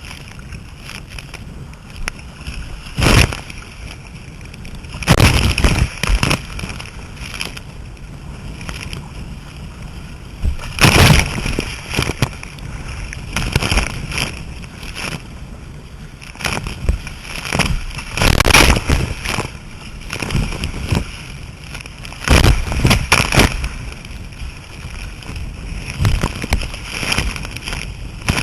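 Sea kayak out on rough water: waves slapping and splashing against the hull and paddle, over a steady rush of sea. Irregular louder surges of splashing come every few seconds.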